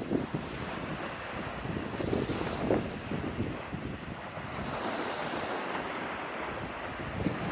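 Lake waves washing onto the shore, with wind gusts buffeting the microphone; a wave surges in with a rising hiss about halfway through.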